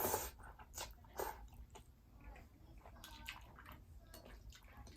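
A person biting and chewing fried seafood close to the microphone: irregular crunches and mouth sounds, loudest in the first second or so, then softer chewing.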